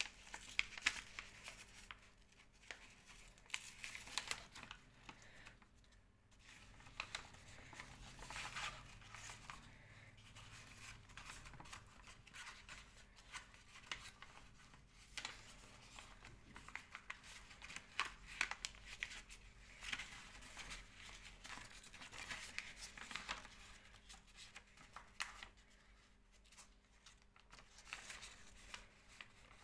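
A sheet of paper rustling and crinkling as it is folded and creased by hand, in short irregular rustles and crackles.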